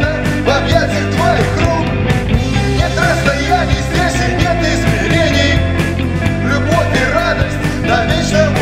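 Indie rock song: full band music with a steady drum beat.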